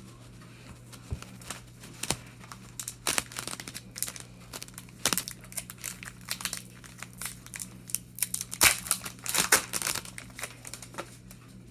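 A hockey card pack's wrapper being crinkled and torn open by hand, in irregular crackling bursts that are busiest about three quarters of the way through. A steady low electrical hum sits underneath.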